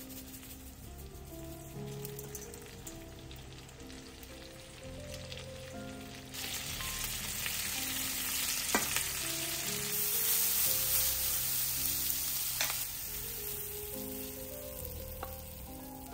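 Sliced bell peppers sizzling in oil in a frying pan as they are stirred with a wooden spatula. The sizzle swells about six seconds in, is loudest a little past the middle, and dies down near the end, with two sharp clicks along the way.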